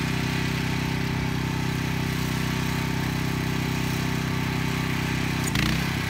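An engine running steadily at idle, with an even, unchanging hum.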